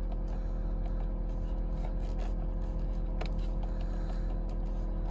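6.7-litre Power Stroke V8 turbodiesel idling, a steady hum heard from inside the cab, with a few faint clicks as the steering-wheel buttons are pressed.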